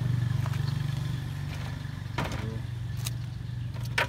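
A vehicle engine idling steadily, with a few light knocks and a louder, sharper knock near the end.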